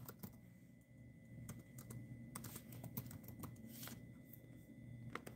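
Faint typing on a laptop keyboard: soft, irregular key clicks.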